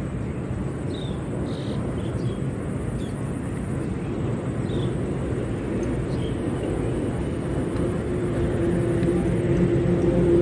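Steady low outdoor rumble, with a motor vehicle's engine hum growing louder in the last couple of seconds as it approaches.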